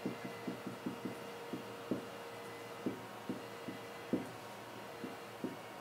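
Marker writing on a whiteboard: a run of short, irregular taps and scratches as each letter is drawn.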